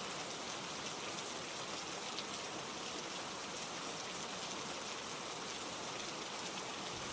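Steady rainfall, an even hiss with light scattered drops.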